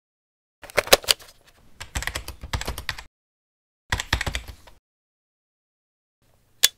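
Plastic clicks and rattles from a Nokia 7110 mobile phone being handled as its sliding keypad cover is opened, in three short bursts, then one sharp click near the end.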